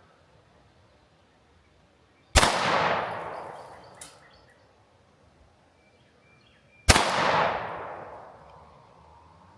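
Two 9mm pistol shots from a Sig P365 X Macro, about four and a half seconds apart, each a sharp crack followed by a long fading echo, with a short faint click between them.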